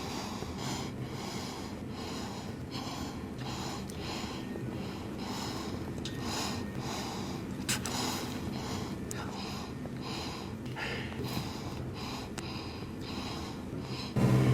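A man sniffing and breathing hard through his nose in a long run of short, quick sniffs, about one and a half a second, with a sharp click about halfway through.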